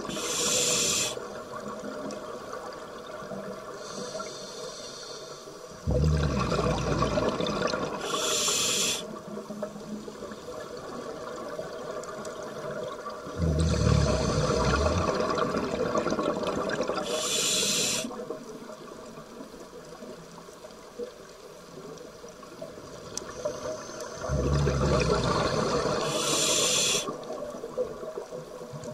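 Scuba breathing through a regulator underwater: each breath in is a short hiss, and each breath out is a long rumble of bubbles, in a cycle of about nine seconds.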